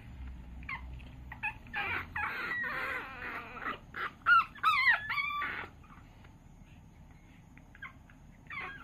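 Chihuahua puppies yipping and whining in short high calls, with a cluster of yelps that rise and fall in pitch about four to five and a half seconds in, the loudest part.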